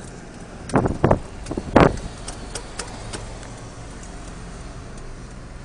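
Steady low rumble of a car on the move, heard from inside, with three loud knocks in quick succession about a second in and a few fainter clicks.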